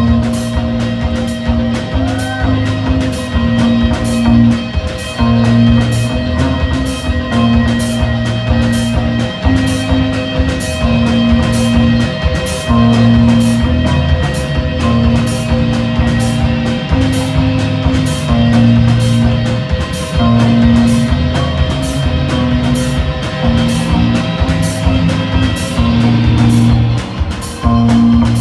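Live rock band playing electric guitars and a drum kit: a repeating low riff under held guitar tones, with regular cymbal hits.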